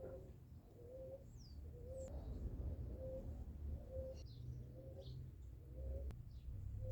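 A dove cooing a steady series of short, low single notes, about one a second, with a few faint high chirps from small birds over a low rumble.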